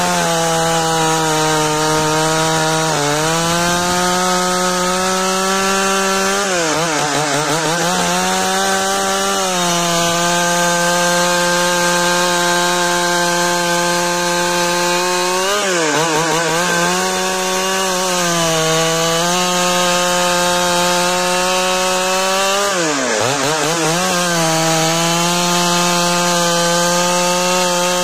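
Large two-stroke chainsaw at full throttle ripping a log lengthwise. Its engine note holds steady in the cut but sags and climbs back about four times as the chain bogs under load and frees up.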